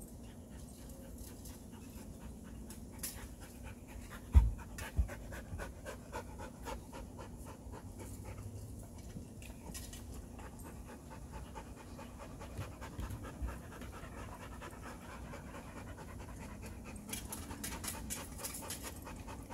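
A dog panting rapidly and steadily, with one low thump about four seconds in.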